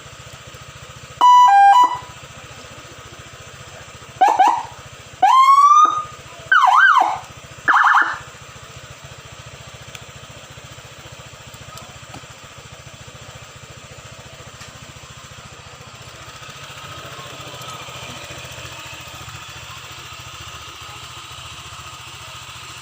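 Electronic siren on a Honda PCX scooter sounded in five short bursts over the first eight seconds: a brief two-note blip, rising chirps and a wail that sweeps up and down, then a short steady tone. The scooter's engine idles steadily underneath and runs on alone afterwards.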